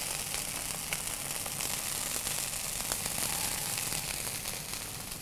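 Onion, garlic, ginger and green chillies sizzling and bubbling in hot oil with a little water in a pan: a steady hiss with small scattered crackles.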